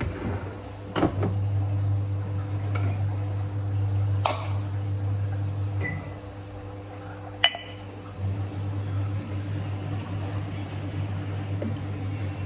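Steady low electrical hum that stops for a couple of seconds midway and then resumes, with three sharp knocks as a coffee pot and a glass jar are set down on a countertop.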